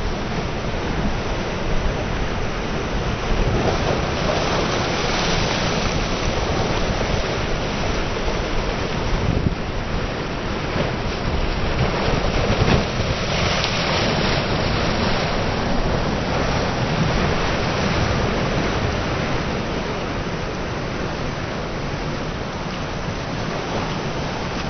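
Choppy sea surf washing and breaking, with wind buffeting the microphone; a steady noise with no engine or voice standing out.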